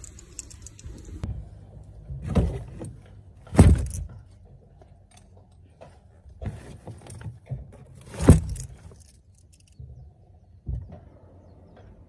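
Folding camp chairs with metal legs being loaded into a car trunk: a handful of knocks and metal clatters, the loudest about four and eight seconds in.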